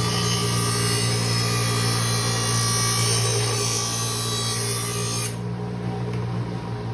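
Bench grinder motor running with a steady hum while a steel lawnmower blade is held against the grinding wheel, a loud hissing grind that cuts off about five seconds in, leaving the motor running on its own.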